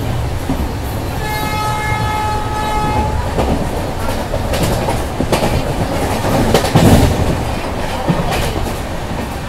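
Passenger train running at speed, with steady rumble and the clatter of wheels over rail joints. A train horn sounds one steady note for about two seconds, starting about a second in. The clatter peaks louder about seven seconds in.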